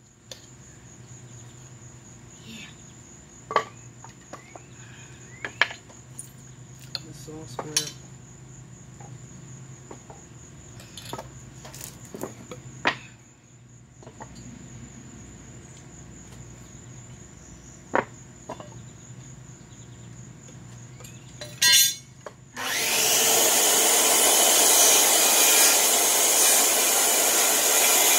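Scattered knocks and taps of a claw hammer working nails out of old, dry wooden braces, over a steady high whine. About 22 seconds in, a circular saw starts up and cuts through the wood, the loudest sound by far.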